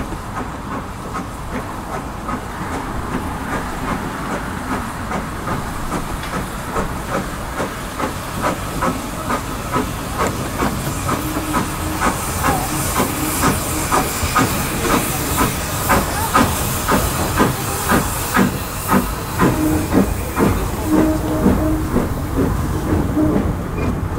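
0-4-0 saddle-tank steam locomotive working a train, its chuffing exhaust beats growing louder and more distinct as it comes close, with steam hissing strongly as it passes underneath. The coaches follow it past.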